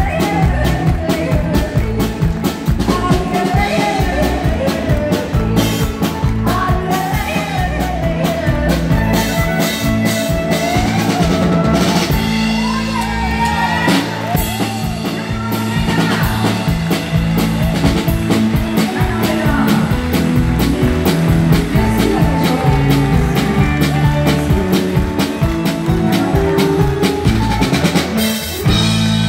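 Live country band playing: a steady drum-kit beat with electric bass and keyboard, and a woman singing into a microphone over it.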